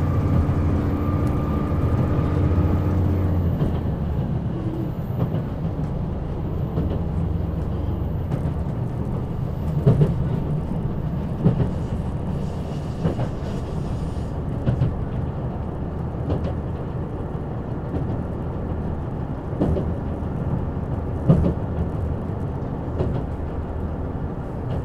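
KiHa 187 series diesel railcar heard from inside the passenger cabin: the deep engine hum and a high-pitched whine from the transmission gears drop away about three and a half seconds in. What follows is a steady rumble of the train running on the rails, with occasional sharp clacks.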